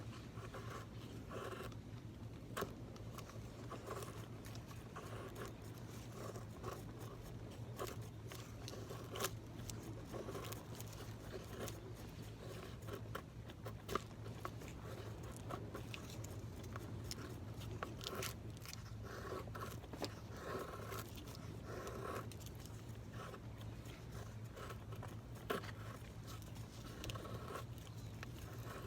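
Knife blade shaving and scraping along wood in short, irregular strokes, as in carving a feather stick, with a few sharp clicks.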